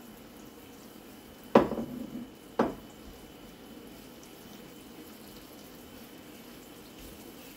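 Floured chicken pieces frying in hot sunflower oil in a pan, a steady soft sizzle. A wooden spatula knocks against the pan twice, about a second and a half and two and a half seconds in, the first knock louder.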